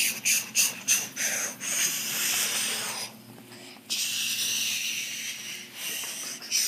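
A child making a hissing, breathy jet-engine whoosh with his mouth for a toy Lego plane taking off. It starts with a few short puffs, then two long hisses with a short break about three seconds in.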